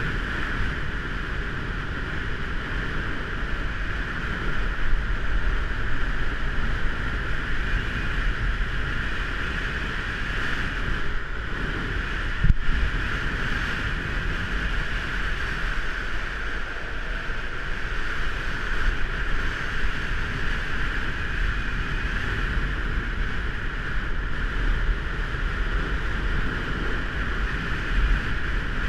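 Wind buffeting a GoPro mounted on a longboard at downhill speed, over the steady rolling noise of urethane wheels on asphalt. A brief knock a little under halfway through.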